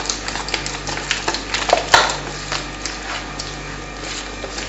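A hand mixing a wet spice marinade in a plastic bowl: irregular squelches, light clicks and scrapes against the bowl, with a sharper knock about two seconds in.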